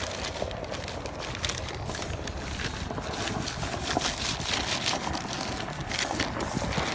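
Newspaper crinkling in short, irregular rustles as it is pressed onto and lifted off wet spray paint to texture it, over a low rumble of wind on the microphone.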